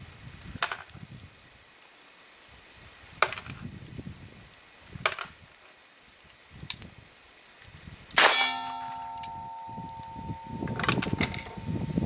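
Revolver mechanism making four sharp separate clicks during a run of double-action misfires, where the firing pin strikes the primers too weakly. About eight seconds in comes a loud metallic clang that rings on for about two seconds, followed by a couple more clicks.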